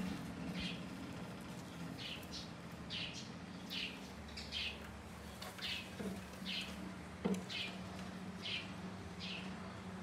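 A small bird chirping over and over, each chirp short, high and falling, over a steady low hum. Two light knocks come about six and seven seconds in.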